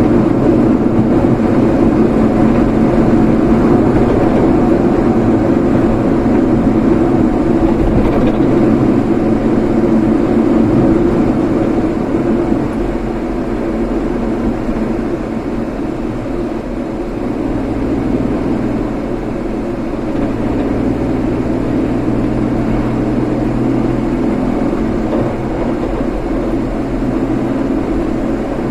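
Road vehicle driving: steady engine and tyre noise, a little quieter from about twelve seconds in.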